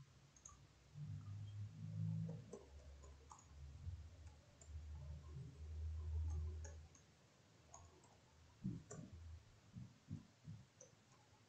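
Faint computer keyboard keystrokes and mouse clicks from typing a ping command at a command prompt. The keys come as a quick run of separate ticks in the second half. A low rumble runs under the clicks through the first half and then stops.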